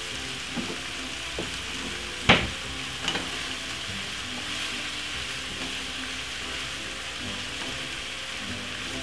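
Shredded cabbage and carrots sizzling steadily in hot vegetable oil in a non-stick frying pan while being stir-fried with a wooden spoon. A few knocks of the spoon against the pan come in the first three seconds, the loudest about two seconds in.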